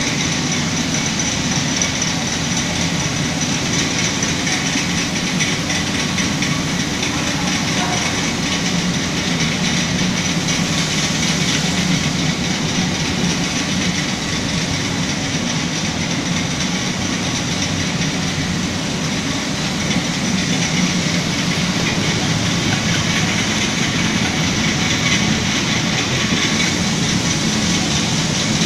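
Band-knife foam splitting machine with a vacuum conveyor belt running while it slices a foam sheet: steady, even machine noise that does not change.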